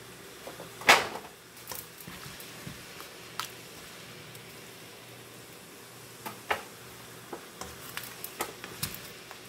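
Cooking tongs clicking and scraping against a nonstick pan as stir-fried chicken and vegetables are lifted out into a foil tray: a string of sharp clicks, the loudest about a second in, and a cluster of quicker ones near the end, over a faint steady hum.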